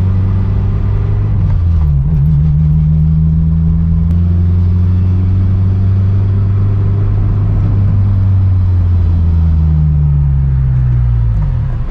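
Honda S2000's F20C four-cylinder engine running under way through its Skunk2 exhaust, freshly reconnected with new bolts and gasket so it no longer leaks. The engine note dips about two seconds in, climbs slowly, then falls away near the end.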